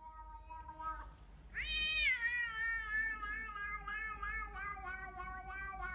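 A cat meowing in one long, drawn-out yowl. A steady call at first, then about one and a half seconds in it turns louder and rises sharply in pitch, before wavering and slowly falling.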